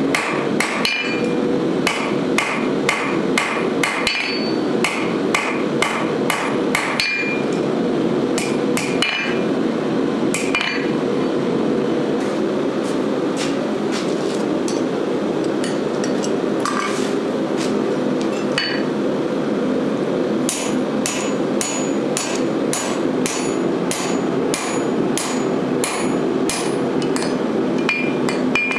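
Hand hammer striking a red-hot steel bar on an anvil, some blows leaving a short metallic ring. Quick blows for the first ten seconds or so, a lull with only a few strikes, then steady blows about two a second, over a steady rushing noise.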